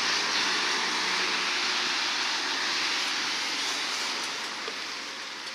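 Road traffic noise: a steady rushing hiss of car tyres, with a faint engine hum in the first second or so, easing off slightly toward the end.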